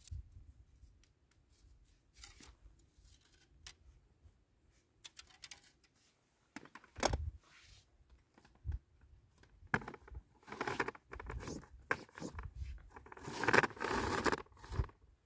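A folding camp table with metal legs being unpacked and assembled by hand: rustling of its fabric carry bag and the slatted top, with clicks and rattles of the metal poles fitting together, scattered at first and busiest in the last few seconds.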